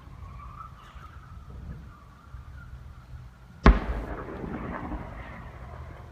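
A single sudden loud boom about three and a half seconds in, dying away in a rumbling tail, taken for thunder overhead. A faint wavering hum, likened to a jet going in a circle, and a low rumble run underneath.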